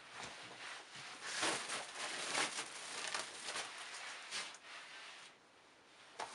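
Used shoes being handled and set down on a pile of shoes: irregular rustling and soft knocks, dropping to a quieter spell about five seconds in, then a sharp tap near the end.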